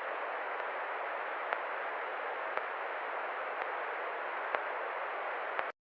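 Steady static-like hiss that starts and cuts off abruptly, with faint clicks about once a second.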